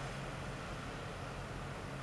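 Steady low hum of a large cruise ship's machinery, with an even hiss of noise over it.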